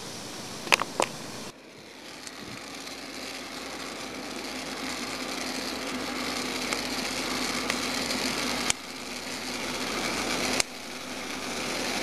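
Coffee beans at second crack in a turbo-oven (UFO/TO) roaster: many small crackling snaps over the steady hum of the oven's convection fan, the stage that marks a dark roast. Two sharp clicks about a second in are the loudest sounds.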